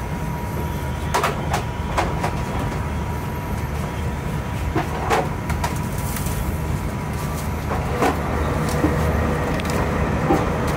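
Steady low rumble heard inside the cabin of a CRH380 high-speed train running at speed, with scattered short clicks and knocks.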